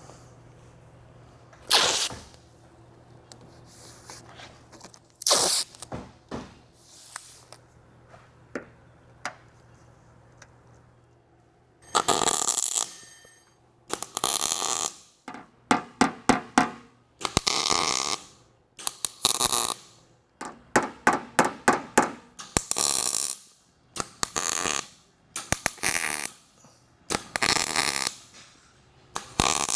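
MIG welder laying a series of short crackling tack welds, each burst lasting about half a second to a second and a half, after a few scattered clicks and knocks at the start.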